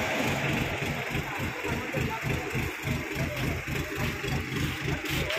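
Diesel engine of a mobile crane running steadily during a lift, with a low, even throb.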